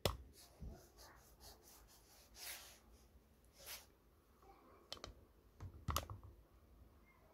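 Faint, scattered clicks and light knocks of small parts and tools being handled at a workbench. A sharp click comes at the start and a cluster of clicks around five to six seconds in.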